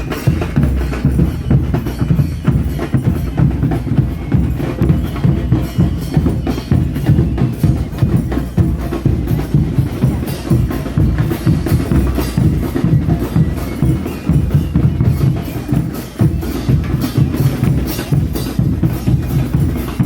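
A baile religioso band's bass drums (bombos) and cymbals (platillos) playing a continuous driving rhythm, with the cymbal clashes cutting through the deep drum beats.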